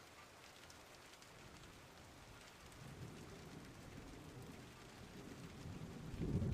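Steady rain with a low rumble of thunder building toward the end.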